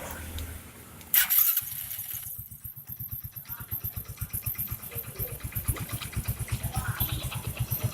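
Single-cylinder motorcycle engine, a Hero Passion Pro, started with a loud burst about a second in, then idling with an even low pulsing beat.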